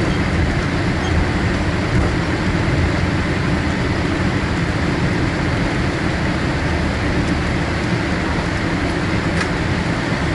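Steady cabin noise of a Boeing 787-8 rolling down the runway after touchdown: a low rumble of the wheels and airframe mixed with the running jet engines, heard from inside the cabin.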